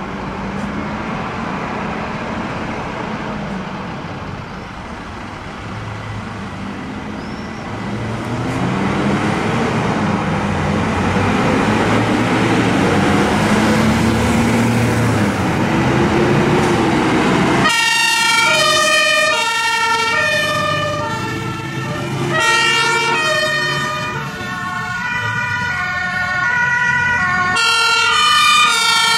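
Diesel engines of fire engines pulling out and accelerating one after another, their pitch rising and falling as they rev. About two-thirds of the way in, German two-tone sirens (Martinshorn) switch on, several at once, alternating high and low notes.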